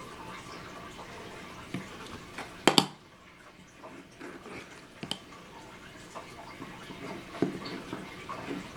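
Light clicks and taps of wooden chipboard panels being handled and fitted together, with a sharp double click about three seconds in.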